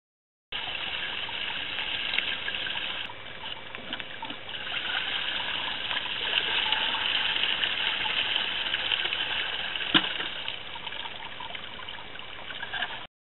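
Water poured from a bucket into a wooden gold-prospecting rocker box, splashing and running through the gravel in it, with one sharp knock about ten seconds in.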